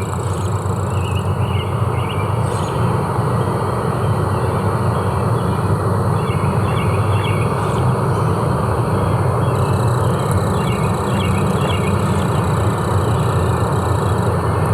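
Forest ambience: a steady low rushing noise under faint, repeated small chirps higher up.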